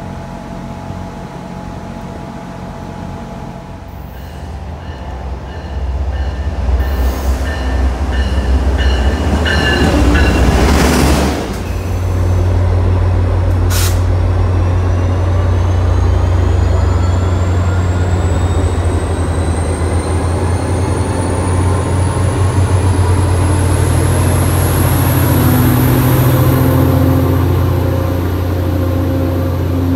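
A commuter train approaches and passes, building to a loud rush about ten seconds in. Then an MBTA EMD F40PH-3C diesel locomotive runs with a strong steady low hum, under a thin whine that climbs slowly in pitch as the train gathers speed and pulls away.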